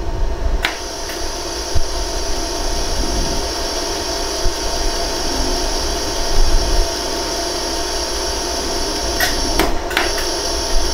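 LaserStar jewelry laser welder running with a steady hiss, with a sharp snap of a laser pulse about a second in and two more near the end as a 14K gold ring's seam is welded.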